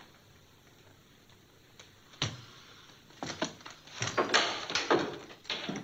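A few footsteps on a wooden floor, then a wooden door opened and shut, giving a cluster of knocks and thuds that is loudest between about four and five and a half seconds in.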